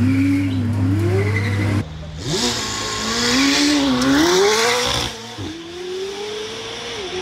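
McLaren Senna GTR's twin-turbo V8 revving up and down in repeated blips, then rising steadily as the car accelerates. The sound changes abruptly about two seconds in and again about five seconds in, where separate clips are joined.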